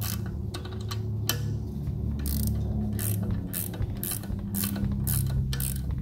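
Ratcheting GearWrench clicking over and over, about two or three clicks a second, as it turns down the nut of an LS valve spring compressor to compress a valve spring on the cylinder head. A steady low hum runs underneath.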